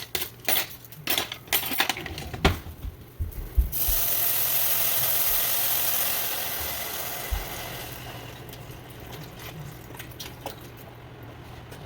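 Dry brown rice toasting in a hot pan, rattling and clicking as it is stirred. About four seconds in, a loud sizzling hiss starts suddenly and dies away over the next few seconds.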